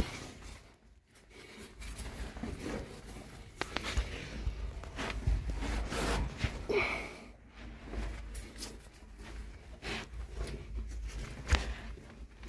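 Clothing scraping and rustling against rock during a crawl through a tight cave passage, with irregular knocks and handling noise on the phone and a low rumble underneath.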